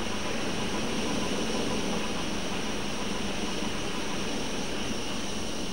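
Steady hum and hiss of running machinery, even and unchanging.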